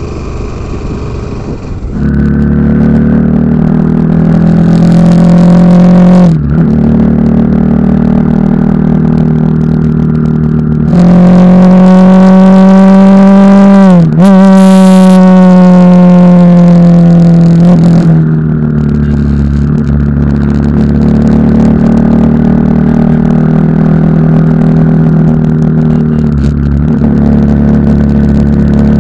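Bajaj Pulsar NS 160's single-cylinder engine running loud and close while riding, its pitch shifting with the throttle: a brief dip about six seconds in, and a sharp drop and rise in the middle.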